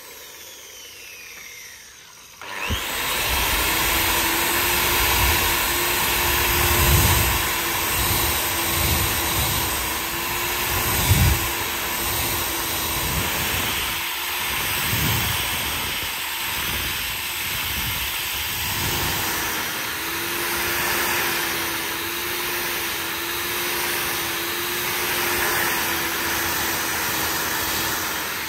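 Angle grinder with a sanding disc on a rubber backing pad, grinding the flat of a steel knife blade. It starts abruptly about two and a half seconds in, then runs steadily with a hum and a hiss, the low rumble rising and falling as the disc is pressed and moved along the blade.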